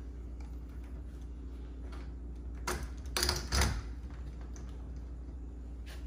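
A Kwikset doorknob being pushed onto its spindle and latch and seated against the door, giving a short run of sharp metal clicks and knocks about three seconds in.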